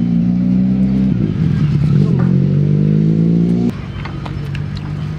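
Car engine running close by, a steady low hum whose pitch rises slightly before it drops suddenly in level a little under four seconds in, then carries on quieter.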